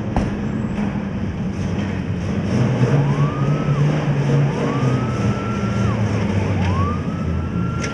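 Fire engine's engine running as the truck turns out on an emergency call. About three seconds in its siren starts: a wail that rises quickly, holds high, then drops and rises again, three times over.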